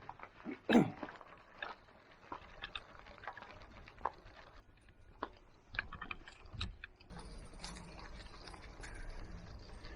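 Irregular clicks and knocks, the loudest a single knock about a second in. From about seven seconds a steady low hum joins in.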